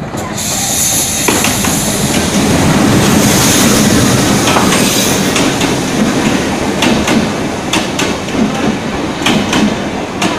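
A WDM3A diesel locomotive and its train of LHB passenger coaches rolling past close by. A high squeal sounds in the first couple of seconds, the noise builds as the locomotive comes level, and then the coaches' wheels clack over the rail joints in quick pairs.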